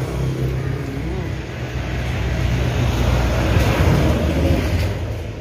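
A motor engine running with a steady low hum. It grows louder about three to four seconds in, then fades near the end, as a passing vehicle does.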